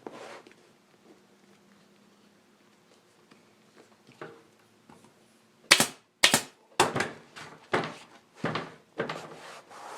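Staple gun firing about seven times in quick succession, a sharp snap every half second to second, driving staples through the seat cover into the motorcycle seat pan.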